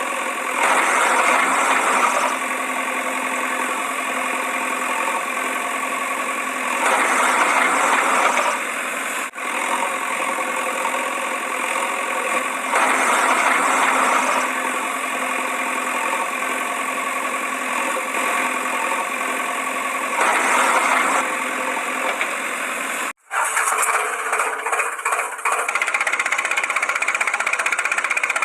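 Engine running steadily. It swells louder for about two seconds every six or seven seconds. About 23 seconds in it cuts off suddenly and a different engine sound takes over.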